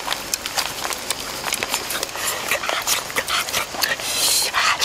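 Wet squelching and clicking of bare hands kneading a chili-spice paste into raw pork ribs, a rapid, uneven run of sticky slaps and squishes. About four seconds in, a short breathy hiss.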